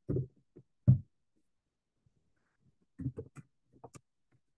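Computer keyboard keystrokes and mouse clicks: a few short taps near the start, one of them loud, then another small cluster about three seconds in.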